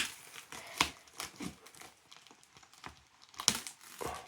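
Parcel packaging crinkling and rustling as it is handled and opened, with a few sharp snaps and clicks, the loudest about three and a half seconds in.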